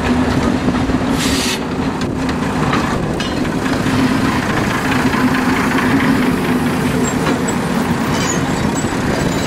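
ÖBB class 5081 diesel railcar idling with a steady low drone, and a short hiss about a second in.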